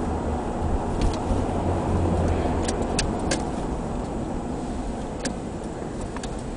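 Steady low rumble of road and engine noise inside a moving car, with a few light clicks.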